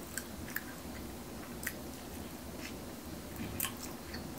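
A person chewing Korean-style fried chicken wings close to the microphone, with a handful of short, crisp clicks and mouth sounds spread through, over a faint steady hum.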